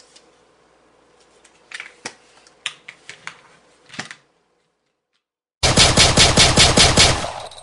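Scattered sharp plastic-and-metal clicks from handling pistols. After a short silence comes a loud, rapid burst of about a dozen gunshot-like reports at roughly six a second, like automatic fire.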